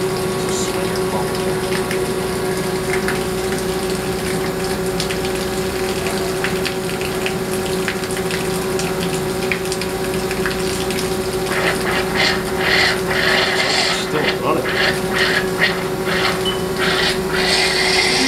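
Haas ST30 CNC lathe cutting under its Chip Blaster 3000 psi high-pressure coolant: a steady hum from the machine and coolant pump under the rush of the spraying coolant jet. From about twelve seconds in, louder hissing spurts break in.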